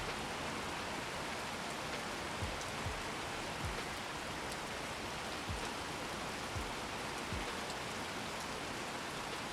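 Steady rain recorded outdoors, with drops landing on tarpaulins and making short, soft low thuds about once a second.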